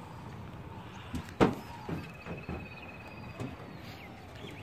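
A few sharp knocks and clicks over faint outdoor background, the loudest about a second and a half in. A faint, thin, high steady tone runs for about a second and a half in the middle.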